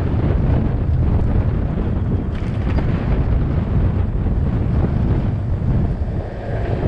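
Wind buffeting the microphone: a loud, steady low rumble that dips briefly near the end.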